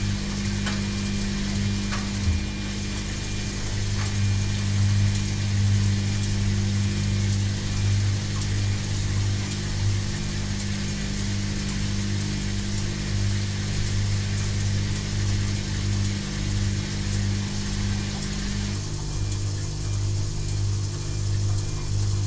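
Washing machine running: a steady low motor hum with a hissing whir over it. Near the end, one tone of the hum stops and the whir grows quieter.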